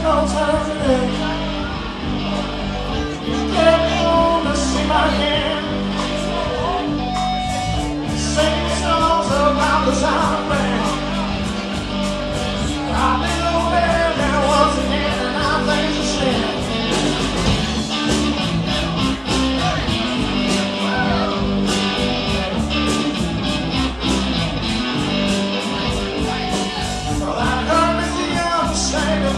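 Live rock band playing: electric guitars over bass and drums, with a steady cymbal beat.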